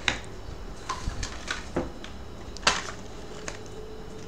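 A few light clicks and knocks from handling the phone's cardboard box and its accessory tray, the loudest about two and a half seconds in.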